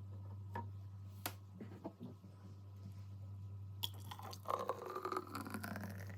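Thick smoothie poured from the blender jar into a glass, with a few faint clicks of glass and jar handling and a gliding, gurgling pour from about four seconds in, over a low steady hum.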